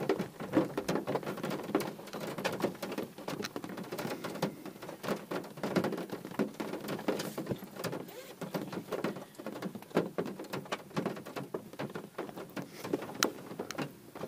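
Heavy rain with large drops pattering irregularly on the car's roof and windscreen, heard from inside the cabin.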